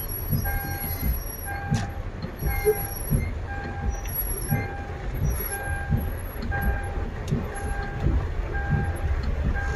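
An electronic warning beeper sounding a steady tone about twice a second, over the low rumble of a vehicle.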